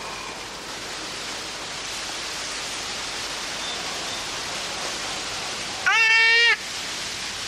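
A steady hiss, then about six seconds in a small girl's short, high-pitched 'aaah' with her tongue stuck out, a taunt back at the boy who stuck his tongue out at her.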